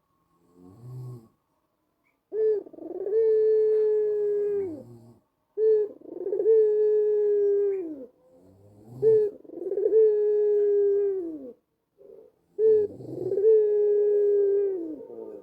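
White ringneck dove (puter putih) cooing: a faint short note about a second in, then four long coos. Each coo opens with a brief note, holds a steady low tone, and drops off in pitch at the end.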